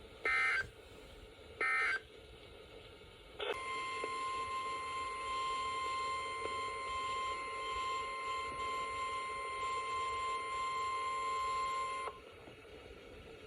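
Two short bursts of EAS SAME digital data tones, the last of a set of three, followed about three and a half seconds in by the NOAA Weather Radio warning alarm, a steady single 1050 Hz tone held for about eight seconds that cuts off sharply.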